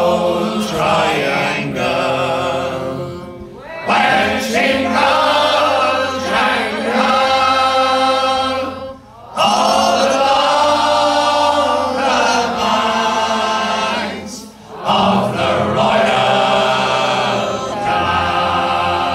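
A group of mostly male voices singing an Irish ballad unaccompanied in harmony, in long held phrases with short breaks between them.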